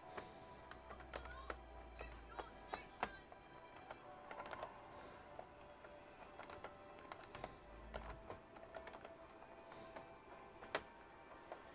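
Scattered light clicks and taps of tools and plastic laptop parts being handled while a Dell Precision 7710 is taken apart, over faint background music.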